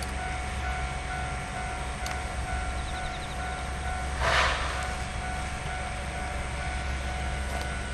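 Distant freight train hauled by a Sangi Railway ED45 electric locomotive, running with a steady low rumble, with a short hiss about four seconds in.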